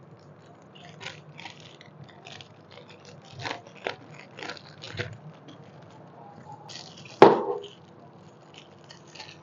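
Clear plastic packaging crinkling and rustling in short bursts as small cake tools are handled and unwrapped, with one louder sharp snap about seven seconds in.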